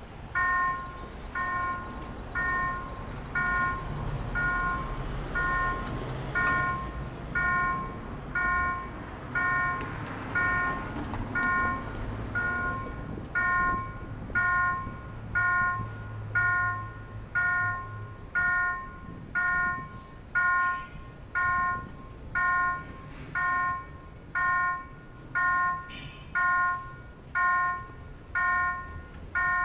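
Railroad level crossing warning bell ringing steadily, about one stroke a second, each a bright multi-toned ding, as the crossing's barriers come down ahead of a train. Traffic rumbles underneath, with a vehicle idling in the first half.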